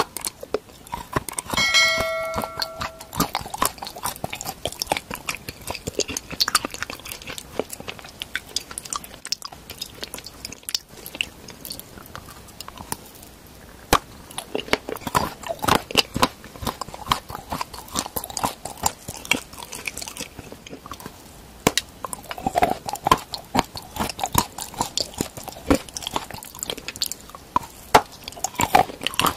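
Close-miked ASMR biting and chewing of a wrench-shaped chocolate: irregular crisp snaps and crunches, with wet mouth sounds between bites. A short ringing chime sounds about two seconds in.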